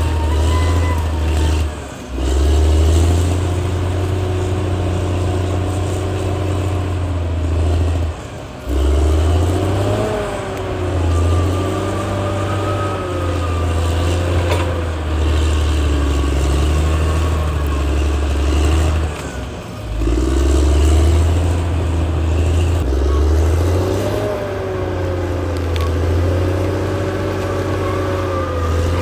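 Caterpillar D6R XL bulldozer's diesel engine working under changing load, its pitch rising and falling as it pushes. Three times it briefly drops off and then picks up again.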